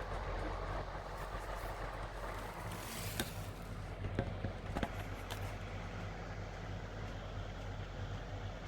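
Panasonic F-MX405-BC stand fan running steadily with its head fixed, a low even hum and airflow, without its intermittent abnormal noise at this point. A few short sharp clicks come near the middle.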